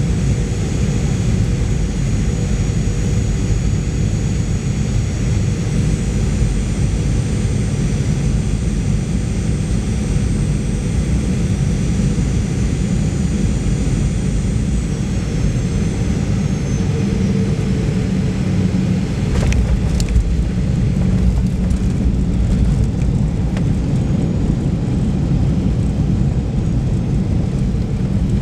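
Cabin sound of a Boeing 737-800 landing: a steady roar of the CFM56 jet engines and airflow, with a high fan whine that falls away about halfway through as thrust is cut. A couple of sharp knocks follow, the wheels touching down, and then a heavier rumble as the plane rolls out on the runway.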